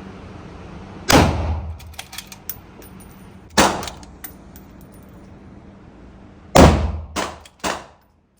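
Five rifle shots from a .308 hunting rifle, each sharp and ringing. The first three come a few seconds apart; the last two follow quickly, about half a second apart. Light metallic ticks come between the shots.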